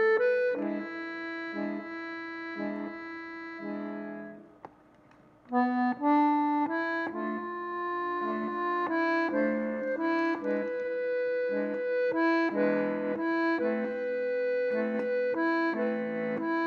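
Accordion music: a melody over held chords. It fades out about four and a half seconds in and starts again about a second later.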